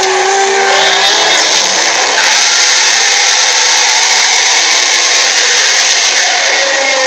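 Stampede sound effect: a dense, steady rush of noise from a mass of running animals, with a few short animal calls in about the first second.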